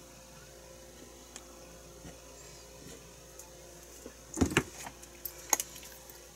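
A plastic ketchup squeeze bottle set down on a plastic cutting board: a short clatter of knocks about four and a half seconds in, then a single sharp click about a second later. Before that there are only faint handling clicks over a low room hum.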